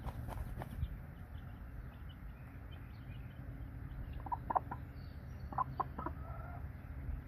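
Mother hen clucking to her brood of chicks, with short clucks in two quick groups about halfway through and near the end, over faint high peeping from the chicks.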